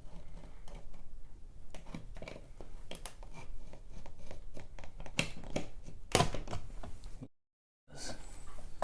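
Irregular small clicks, taps and scrapes from hand work on a ceiling light fixture stuck to the ceiling with paint, with a louder knock about six seconds in. The sound cuts out completely for about half a second a little after seven seconds.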